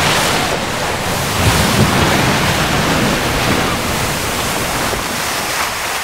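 Sea surf breaking and washing up a sandy beach, a steady rush of waves.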